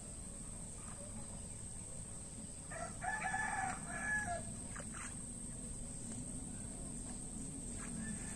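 A rooster crowing once, about three seconds in, the call lasting about a second and a half. Beneath it runs a steady high-pitched insect drone.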